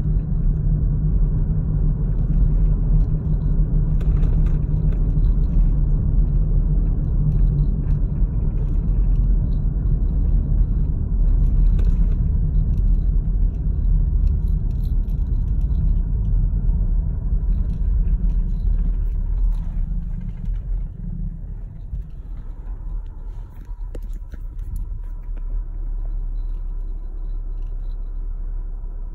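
Road and engine rumble inside a moving car's cabin, a steady low drone. About twenty seconds in it eases off as the car slows and stops, leaving a quieter low hum.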